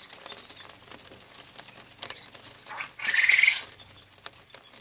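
Steady rain pattering as a faint hiss full of small ticks, with one short, louder high-pitched sound about three seconds in.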